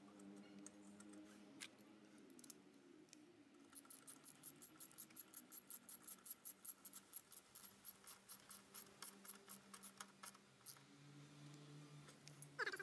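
Hand socket ratchet clicking softly and evenly, about five clicks a second, starting about four seconds in and stopping a few seconds before the end, as the single bolt on an exhaust header clamp is tightened.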